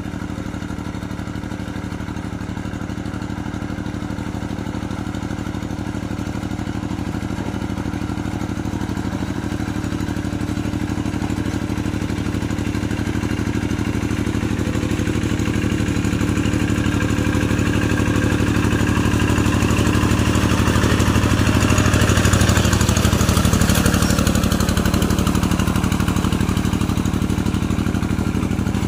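Paddy-field tractor engine running steadily while ploughing, growing louder as it comes closer about two-thirds of the way through, then easing off a little.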